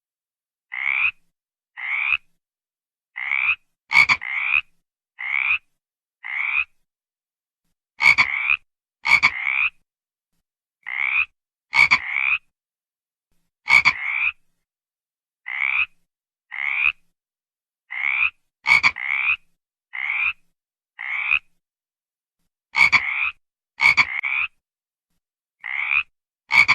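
A frog calling over and over: short croaks about one a second, sometimes two close together, a few of them starting with a sharp click.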